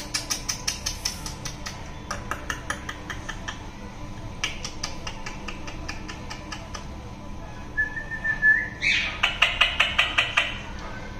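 A young pet parakeet, held in the hand, gives quick series of clicks and chirps. About two-thirds of the way through a single whistled note is held and rises at its end, then a loud fast run of squawky calls follows.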